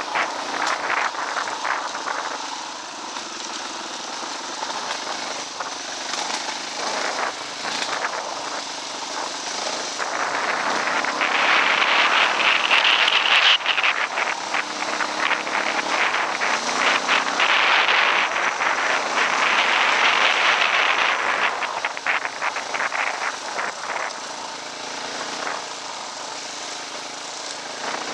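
Dirt bike engine running while riding a dirt trail, mixed with wind rush and short clattering knocks from the bumps; it grows louder about ten seconds in and eases off again a few seconds past the twenty-second mark.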